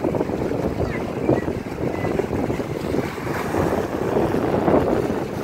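Wind blowing across the microphone, mixed with lake waves splashing against a shoreline seawall, in uneven gusts and surges.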